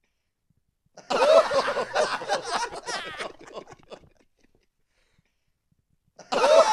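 A sampled clip of crowd laughter, triggered from a keyboard, plays for about three seconds from a second in. After a short silence the same clip starts again near the end.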